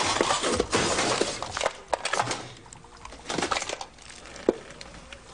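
Clattering and crunching of objects with sharp glassy clinks during a scuffle between two men, densest in the first two seconds, then scattered knocks and one sharp click about four and a half seconds in.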